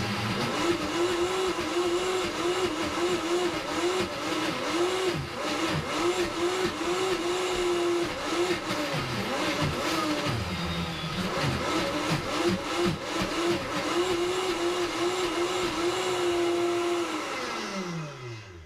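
Vitamix S55 personal blender motor running at high speed through a thick cashew dip, its pitch repeatedly sagging and recovering as the load shifts. About 17 seconds in it is switched off and winds down with falling pitch.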